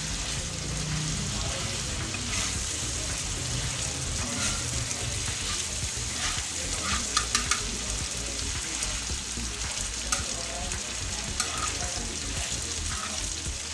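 Thin beef slices sizzling steadily in oil on an iron tawa, a freshly added batch frying toward golden. A spatula scrapes and taps the griddle now and then, most sharply about seven seconds in.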